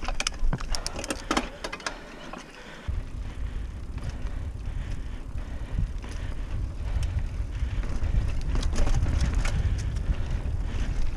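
Trek Marlin 6 hardtail mountain bike riding over a dirt singletrack: a low rumble of tyres and air over the handlebar-mounted camera, with scattered clicks and rattles from the bike over bumps. The low rumble thins out around two seconds in, then comes back.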